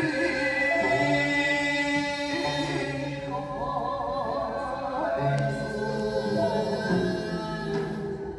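Korean folk song (minyo) performed live: long held sung notes with a wavering vibrato, over other sustained tones.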